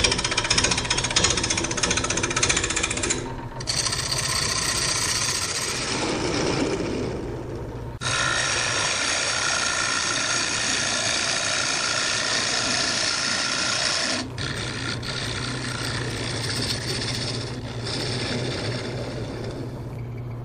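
Wood lathe running while a gouge cuts into a spinning Garry oak bowl blank: a loud, rough rush of shavings being peeled off over the motor's steady hum. The cutting breaks off and starts again abruptly a few times.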